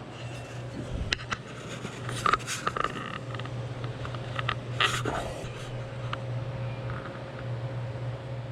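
Workshop handling noise: scattered light clicks, taps and scrapes, with sharper knocks about a second, two seconds and five seconds in, over a steady low hum.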